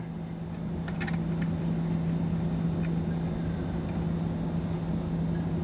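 Steady mechanical hum from background machinery, with a few faint clicks about a second in.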